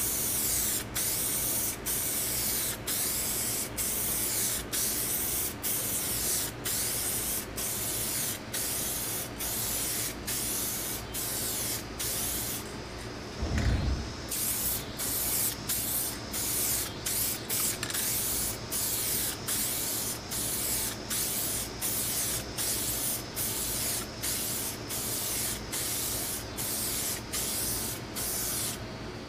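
Aerosol rattle can spraying red automotive paint: a steady hiss broken by short, evenly spaced dips about one and a half times a second as coats are laid down. About halfway through the spraying pauses briefly with a low thump, then carries on.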